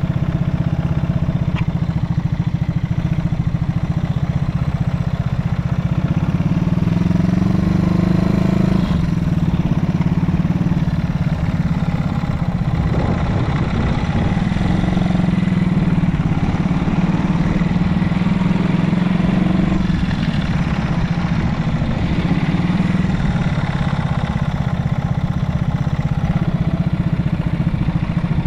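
Yamaha TW200's air-cooled single-cylinder four-stroke engine running through a Supertrap down-muffler, with engine speed rising and falling a couple of times.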